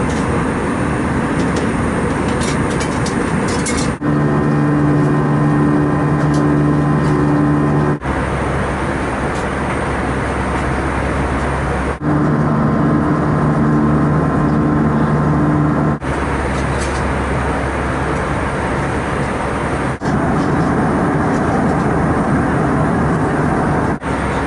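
Steady airliner cabin noise in flight: the engines and the rush of air past the fuselage. The sound changes abruptly every four seconds as short clips cut together, and some clips carry a steady low hum.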